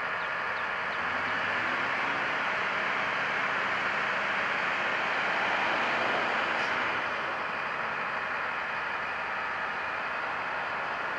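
Steady running noise of heavy diesel equipment, a little louder from about two seconds in until about seven seconds, with one faint tick near the end of the louder stretch.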